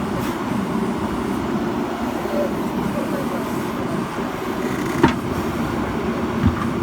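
JCB backhoe loader's diesel engine running steadily under work, with two sharp knocks, one about five seconds in and one near the end.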